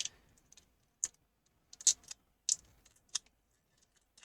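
Small sharp clicks and taps of hard plastic and metal parts being handled, about five spaced clicks under a second apart, as the USB-C connector board of an opened external hard drive is worked loose.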